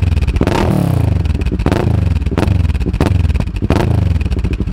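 Kawasaki Ninja 650's parallel-twin engine through an Akrapovic carbon-fibre slip-on exhaust, idling and revved in several quick throttle blips, each rising sharply and falling back to idle.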